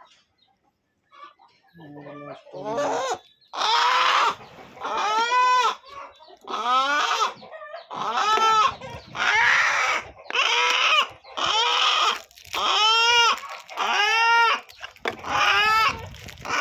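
A chicken squawking loudly over and over, about one call a second, each call rising and falling in pitch. It starts after a few seconds of near quiet.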